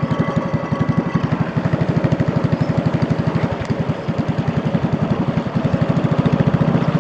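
Small boat engine running steadily with a fast, even chug.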